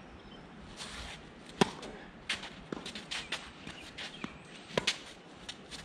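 Tennis ball being hit by racquets and bouncing on the court in a rally, a series of sharp pops, the loudest about a second and a half in and a close pair near the end, with shoe scuffs on the court between them.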